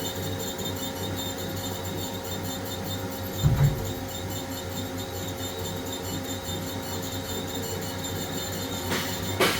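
Steady machine hum with several fixed tones, typical of the Haas SL30T CNC lathe powered up and running. A short low thump comes about three and a half seconds in, and a couple of sharp clicks come near the end.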